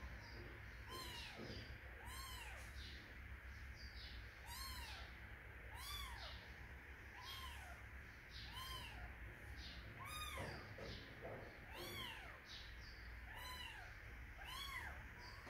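A young kitten mewing over and over, about once a second, each short mew rising and falling in pitch.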